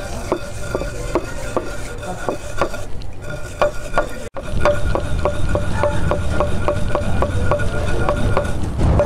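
Coriander seeds being pounded and ground with a pestle in a mortar: steady strikes about three a second, each with a faint ringing tone, broken for an instant about four seconds in.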